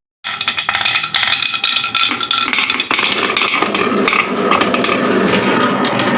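Marbles clicking and clattering rapidly down a wooden HABA marble run, with a tune playing over them.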